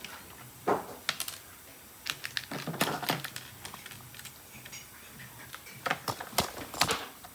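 Small plastic Lego pieces clicking and clattering as they are handled and pressed together, in irregular clusters of sharp clicks.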